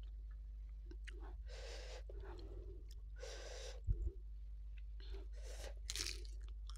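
Hissing breaths drawn in and out through the mouth, a reaction to spicy sambal. A soft low thump comes about four seconds in as a hand reaches into a glass bowl, and near the end there is a short mouth sound as food is put into the mouth.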